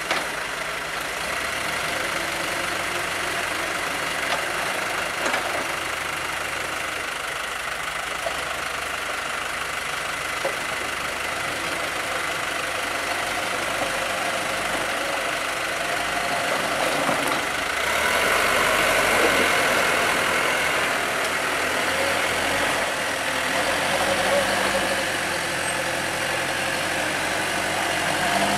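Motor vehicle engines running at or near idle in road traffic, growing louder for a few seconds about two-thirds of the way in.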